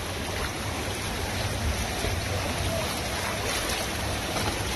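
Steady rush of river rapids washing around an inflatable raft, with a continuous low rumble underneath.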